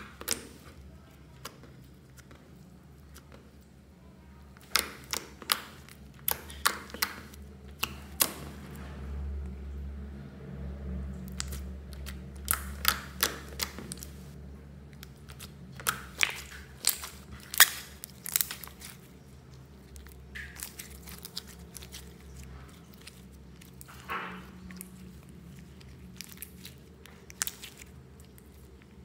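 Gold glitter slime being squeezed, folded and stretched by hand, giving sharp, irregular clicks and pops in quick clusters, with soft squishing in between.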